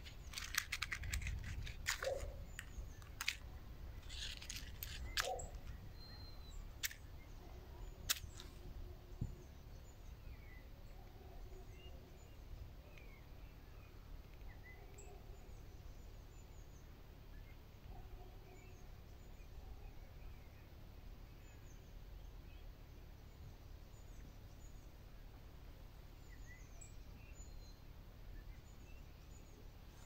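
Faint birds chirping in woodland, with a few sharp clicks and knocks of handling over the first several seconds.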